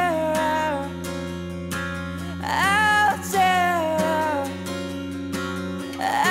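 A song: a singing voice holding long, gliding notes over guitar accompaniment.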